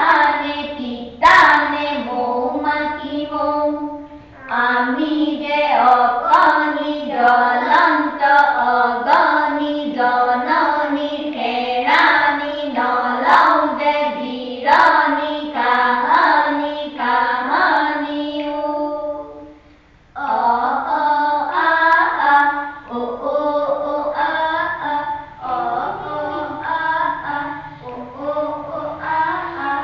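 Women and children reciting a rhythmic rhyme in a sing-song chant together. There is a short break about four seconds in and another about twenty seconds in.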